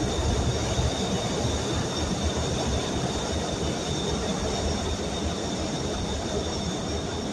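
Rapid-transit train crossing a river bridge: a steady rumble of wheels on the rails with a thin, high wheel squeal held over it.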